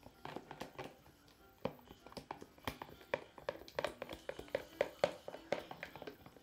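Utensil stirring a glue slime mixture in a clear plastic tub, tapping and scraping against the plastic in quick irregular clicks.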